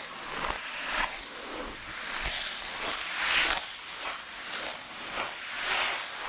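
Ice skate blades scraping and gliding across ice: repeated hissing scrapes, roughly one a second, as the skater strides.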